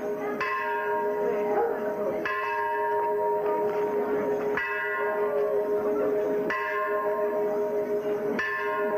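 Bell strikes about every two seconds, five in all, each ringing with a bright cluster of overtones over a steady low two-note drone.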